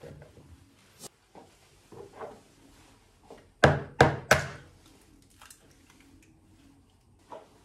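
Three sharp knocks in quick succession, about a third of a second apart, near the middle, among lighter taps and clatter.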